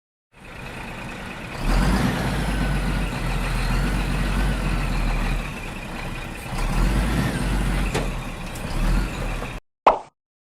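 Heavy truck-type engine running, a sound effect standing in for the mini tractor, with a deep rumble. It swells about a second and a half in, eases briefly past the middle, rises again and cuts off abruptly near the end. A short sharp click follows.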